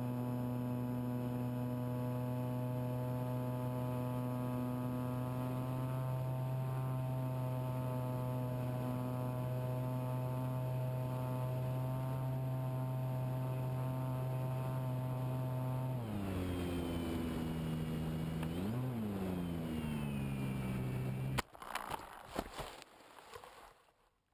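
Electric motor and propeller of an RC model plane running at a steady pitch, then changing pitch up and down with the throttle for a few seconds before cutting off suddenly. Knocks and clatter follow briefly.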